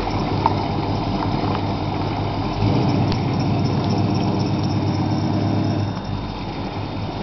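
Car engine running at low revs, heard from inside the vehicle as a steady low rumble that grows louder about a third of the way in and eases off near the end.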